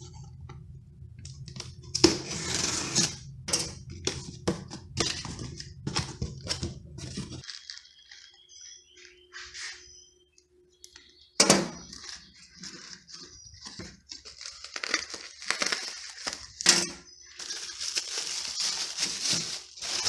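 Clicks, knocks and scraping of hand tools and metal parts during work on a car's wheel bearing, over a low steady hum that stops about seven seconds in.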